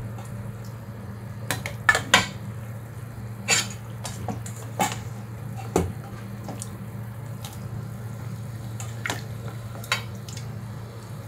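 Scattered sharp clinks and knocks of kitchen utensils against cookware, about eight in all, loudest a couple of seconds in, over a steady low hum.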